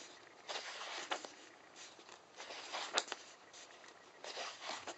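Paper rustling as the pages of a paperback workbook are turned by hand, in several short swishes, with a sharp snap of paper about three seconds in.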